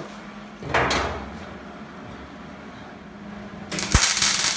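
Wire-feed welder arc crackling as steel angle iron is welded: a short burst about a second in, then a longer crackling weld that starts near the end. A low steady hum runs between the welds.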